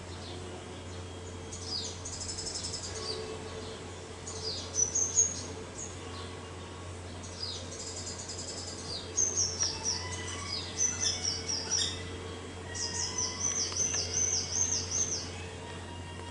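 Small birds chirping and singing: short, high, falling notes come in clusters, and a quick run of repeated notes follows near the end. A steady low hum runs underneath.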